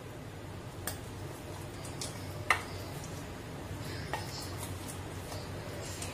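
A few light, sharp knocks of a steel mixer-grinder jar against a ceramic bowl as its last contents are tipped out, the loudest about halfway through, over a low steady hum.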